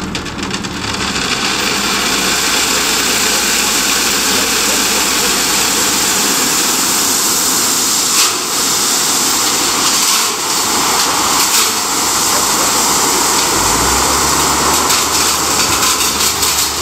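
Gravel pouring off the raised bed of a loaded dump truck and out past the tailgate onto a growing pile: a steady rushing rattle of stone that builds about a second in, over the truck's engine running to power the hoist, its low hum coming up again near the end.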